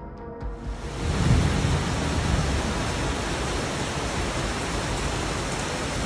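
Floodwater rushing past parked cars, a loud steady wash of water noise that swells in about a second in.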